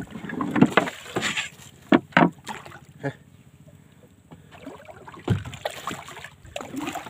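A hooked stingray thrashing at the surface beside a small boat, making irregular splashes in bursts, with a quieter spell in the middle when it goes under.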